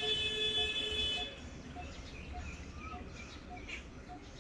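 Outdoor ambience with faint bird chirps. A steady high-pitched tone cuts off about a second in, and a short low note repeats evenly about twice a second throughout, over a low rumble.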